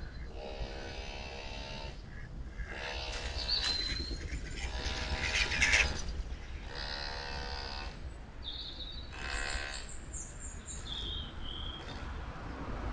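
A series of drawn-out animal calls, each under a second long and coming about every two seconds, with small birds chirping briefly in between. Underneath runs the low, steady sound of water stirred by an electric narrowboat's propeller.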